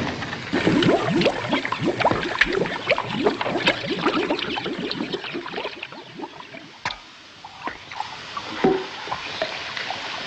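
Liquid bubbling and gurgling in a dense run of short rising blips, thinning out about six seconds in to a few scattered pops.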